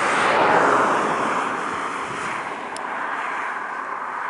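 Boeing 767-300's Rolls-Royce RB211 turbofans on final approach: a broad jet rush that swells to its loudest about half a second in and then eases.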